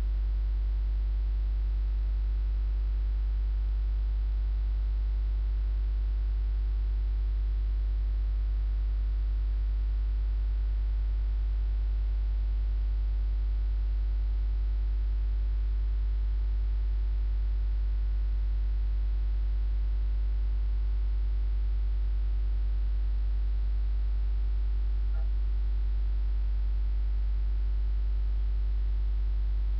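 Steady low electrical mains hum, a constant buzz with faint overtones, unchanging throughout.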